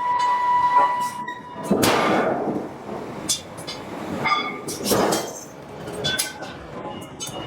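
Hydraulic forging hammer striking hot steel billets: a series of heavy, irregular blows, each trailing off in a noisy smear. A steady high whine stops about a second in.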